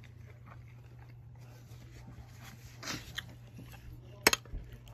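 Quiet eating sounds, small chewing clicks, over a steady low hum, with one sharp click about four seconds in.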